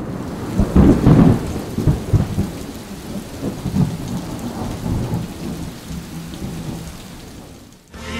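Thunderstorm: steady rain with rolling thunder, the loudest peal about a second in and further rumbles after it, fading away near the end.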